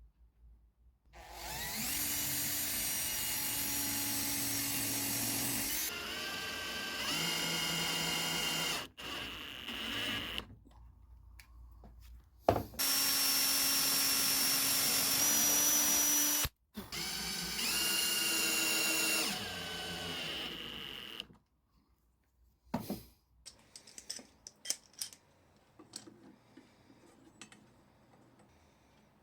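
Power drill running in several runs of a few seconds each, its motor pitch holding steady within each run and shifting between them, typical of drilling or driving screws into wood. After the last run come a few light clicks and knocks of handling.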